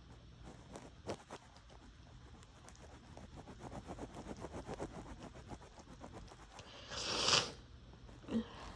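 Heavy breathing and bedsheet rustling as a sneeze builds, then one loud, wet, half-stifled cold sneeze about seven seconds in, followed by a brief short sound near the end.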